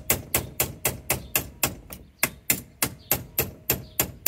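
Small ball peen hammer tapping a 5/32 roll pin punch in a steady run of sharp metallic taps, about four a second, driving the roll pin up out of a 1964–66 Ford Thunderbird's column shift lever.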